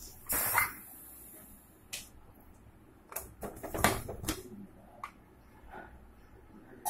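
Aluminium pressure cooker being opened: its whistle weight lifted off the vent, then a string of sharp metallic clicks and knocks as the lid is worked loose and lifted off, the loudest knock a little before the middle.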